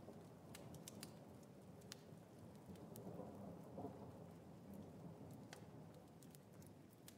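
Faint ambience: a soft, steady low hiss with scattered light ticks.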